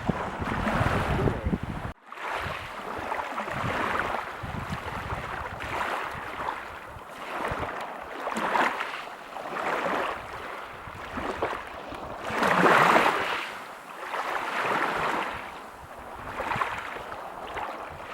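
Ocean waves washing onto a beach: a rushing noise that swells and fades every second or two, with one larger wave about two-thirds of the way through. There is a brief dropout about two seconds in.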